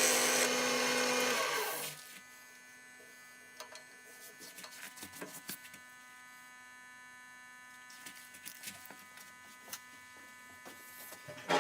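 An electric power tool running loudly, then shutting off and spinning down about two seconds in. After it, a faint steady hum with scattered light clicks and taps of handling in the wood shop.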